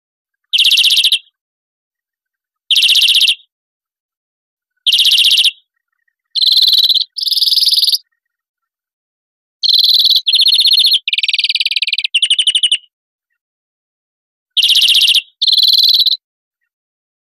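European greenfinch song: short, rapid, high trills, each under a second. They come singly about every two seconds at first, then in runs of two and of four different trills strung together.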